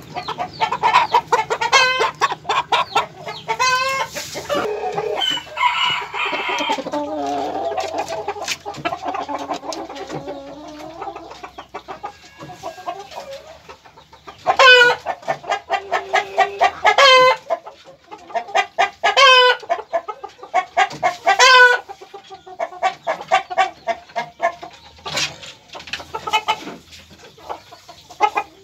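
Birkok chickens clucking and squawking in runs of short, loud calls, repeating in bursts about every two seconds through the second half.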